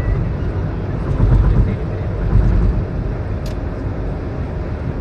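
Steady road and engine rumble heard from inside a car's cabin while driving on a highway, with a faint tick about three and a half seconds in.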